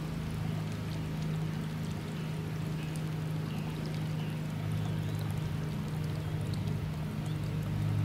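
Water pouring steadily into a swimming pool from the solar heater's return line, over a steady low hum.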